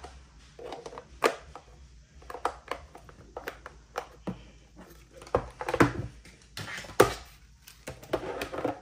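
Plastic clicks and knocks of a Yealink T41S desk phone being handled as its stand is fitted onto the back, with the loudest knocks and snaps about five to seven seconds in.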